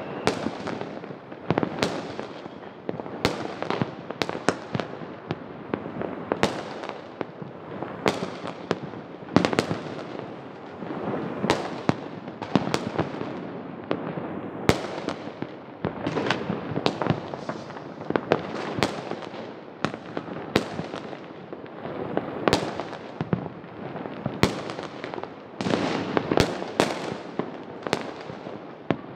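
Many fireworks and firecrackers going off: sharp bangs from near and far, a few each second at uneven intervals, over a constant dense crackle and rumble of distant explosions.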